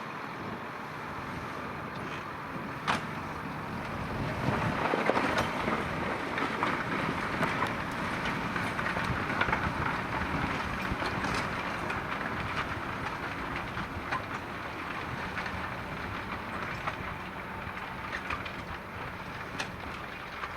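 Valtra T.153 tractor's diesel engine running steadily as it pulls a Pöttinger plough, growing louder about four seconds in and then slowly fading as it moves along the field, with a few faint clicks.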